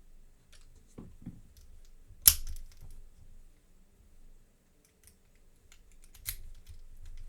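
Small metal clicks and taps from an American Lock 1100 padlock and its parts being handled and put back together by hand. One sharp click about two seconds in is the loudest, with another near six seconds.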